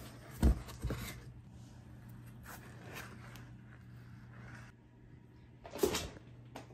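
Cardboard box and grass tray being handled: a sharp knock and a second thump in the first second, softer rustling and scraping of cardboard after, and another thump about six seconds in.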